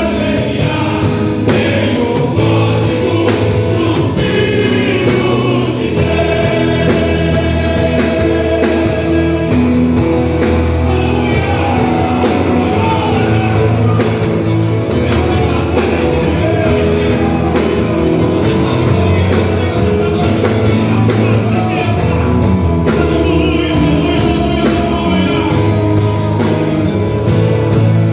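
A choir singing a gospel song over band accompaniment.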